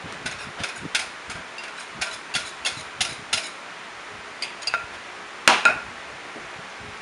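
Spatula and bowl clinking against a stainless steel mixing bowl: a quick run of light, briefly ringing taps, a few more after a short pause, then two louder knocks near the end.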